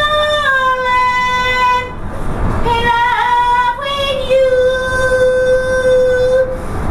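A woman singing unaccompanied in long held high notes: three phrases with short breaths between, the middle one wavering and the last held steady for about two seconds.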